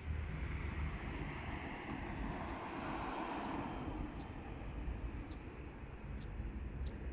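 Outdoor noise with no music yet: wind rumbling on the microphone and the rushing noise of a passing vehicle that swells to a peak about three seconds in and fades.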